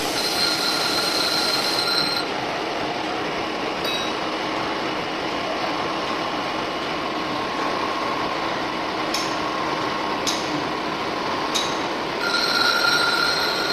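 A lathe cutting, with a steady rushing cutting noise. A high-pitched squeal sounds for the first two seconds and comes back near the end, and there are a few sharp ticks in between.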